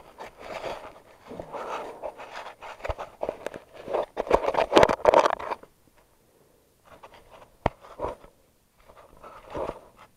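Handling noise from a GoPro camera being carried and moved about: scraping and rubbing against its housing, with a few sharp knocks. The noise comes in irregular bursts, is loudest about four to five seconds in, and gives way to shorter scrapes and a single click as the camera is set down.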